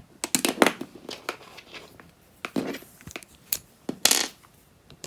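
Clicks, taps and short scrapes of plastic being handled and worked at as the selfie stick's side cover is pried open, the loudest about half a second in and about four seconds in.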